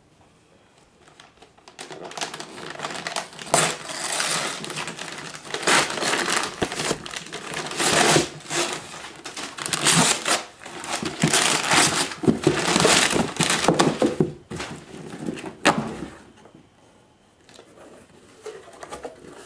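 Wrapping paper being ripped and crumpled off a gift box in quick, irregular tears for most of the stretch, then quieter rustling of cardboard box flaps being pulled open near the end.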